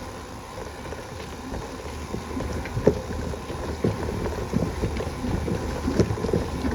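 Wind buffeting the microphone of a moving bicycle, with irregular knocks and rattles as the bike rides over rough ground.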